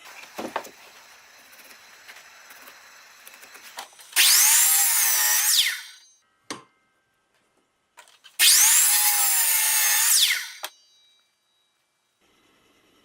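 Electric drill boring into a wooden pen blank: two runs of about two seconds each, the motor's whine dipping in pitch and recovering as the bit bites into the wood. Both runs start and stop abruptly.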